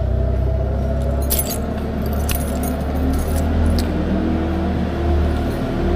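Cargo van engine running steadily, with keys jingling several times over it.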